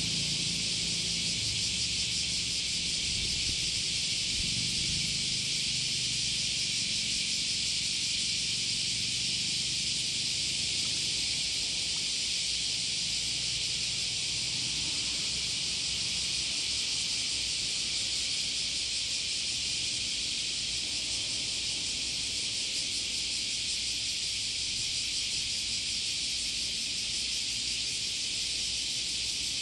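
Steady high-pitched hiss of outdoor ambience, unchanging throughout, with a faint low rumble beneath it.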